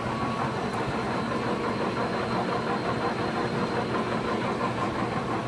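Stanko 1A983 hollow-spindle engine lathe running, a steady mechanical hum from its drive and gear train with a faint constant whine.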